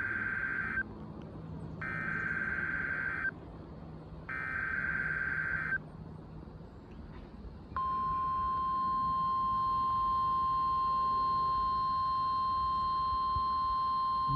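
Emergency Alert System tones on NOAA Weather Radio, received over a weather radio receiver. First come the SAME digital header's data bursts: the tail of one, then two more, each about a second and a half long with a second between them. About eight seconds in, the steady 1050 Hz warning alarm tone starts and holds, with radio hiss beneath.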